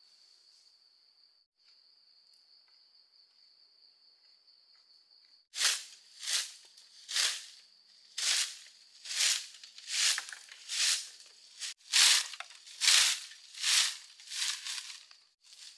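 A steady, high insect trill, cut off about five and a half seconds in by a run of loud rasping strokes, a little more than one a second, each swelling and fading, such as hand sawing or scraping of bamboo or wood.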